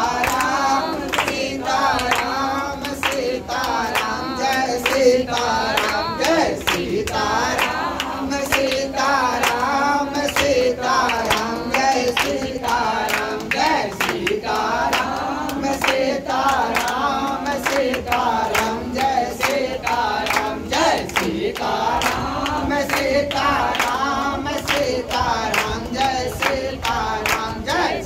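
A group of voices singing a devotional hymn together, with steady rhythmic hand clapping keeping time.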